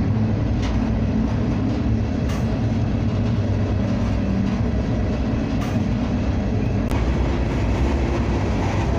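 Empty covered grain hopper car rolling along the track, heard from its end platform while riding: a steady low rumble of wheels on rail, with about four sharp clicks scattered through it.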